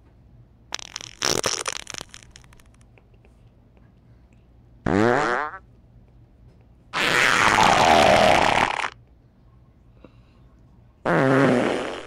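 Fart sounds, four in a row with short pauses between them: a sputtering, crackly one about a second in, a short pitched one about five seconds in, a longer, noisier one lasting about two seconds, and another pitched one near the end.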